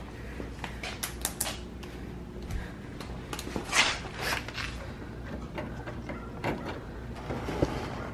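Intermittent light clicks and scrapes of hand tools and plastic fasteners as a car's bumper and its covers are unfastened.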